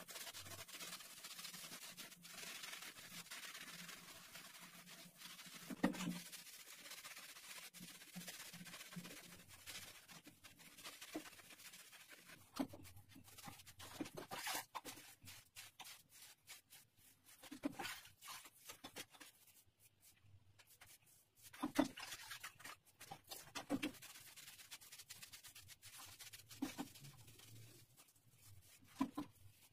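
Damp sponge wiping over small mosaic tiles, a faint rubbing and scraping. Scattered sharp knocks and clicks, the loudest about six seconds in and again a little past twenty seconds.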